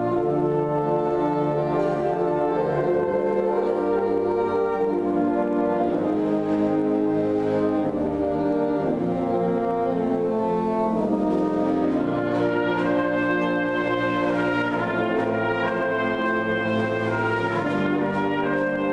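Concert wind band of woodwinds and brass playing a full, sustained passage of held chords that change every second or two, at a steady loudness.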